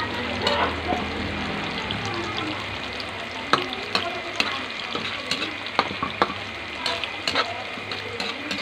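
Tofu blocks frying in hot oil in a pan: a steady sizzle, with sharp pops and crackles that come more often from about halfway on.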